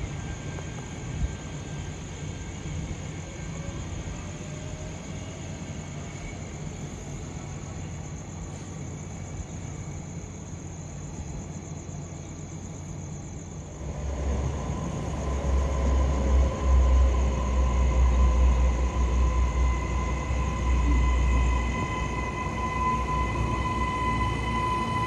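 Queensland Rail electric passenger train. There is a steady background rumble at first; about halfway through, a much louder deep rumble comes in as a train passes close by, carrying a steady high tone over it.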